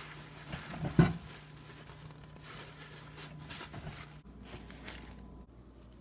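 A cloth rubbing and rustling as it wipes a microwave's front panel, with one sharp knock about a second in, over a low steady hum.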